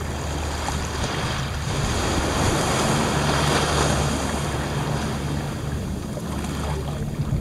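Small waves breaking and washing up the sand at the water's edge. The surf swells to its loudest about three seconds in, then eases off, with a steady low rumble of wind on the microphone underneath.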